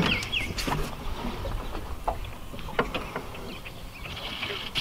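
Scattered light knocks and taps as a landing net and its metal handle bump against the side of a small aluminum fishing boat while a pike is netted, over a low wind rumble. A bird chirps briefly near the start.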